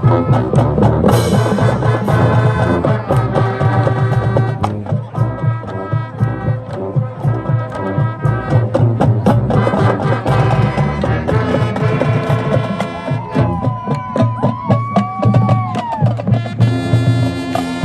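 High school marching band playing: brass over a steady drumline beat, with a few sliding, bent notes in the second half.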